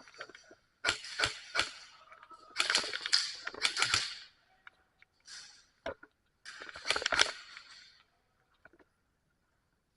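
Airsoft guns firing: three quick single shots, then rapid rattling bursts of fire about halfway through and again near the end.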